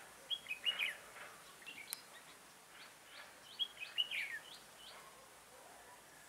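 Red-whiskered bulbul singing: two quick phrases of short, descending whistled notes, about a second in and again near four seconds in, with fainter calls between.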